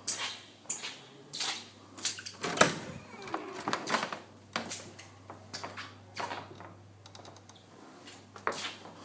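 A run of irregular knocks and clicks, like objects being handled and set down, over a steady low electrical hum.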